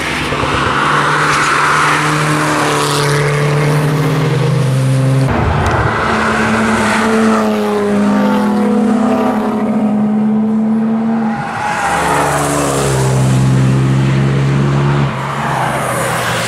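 Several cars driving past one after another on a race circuit, their engine notes rising and falling as each one comes through the bend and goes by.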